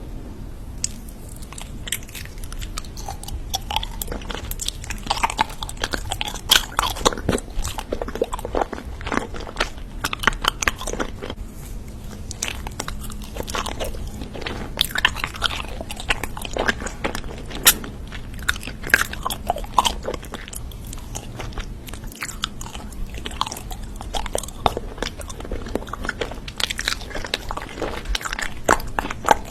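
A person biting and chewing crunchy food close to the microphone: a long irregular run of sharp crunches with quieter chewing between them.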